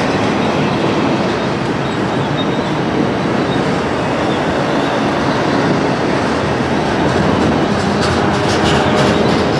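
Double-stack intermodal freight cars rolling past: a steady rumble of steel wheels on rail with a clickety-clack over joints, and sharper clicks near the end.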